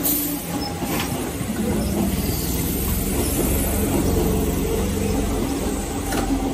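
Keihan 5000 series electric commuter train running past on the rails, a steady rumble of wheels and cars with a few faint clicks.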